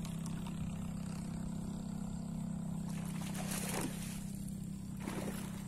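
Steady low drone of a small engine running, with two short rushes of noise about three and five seconds in.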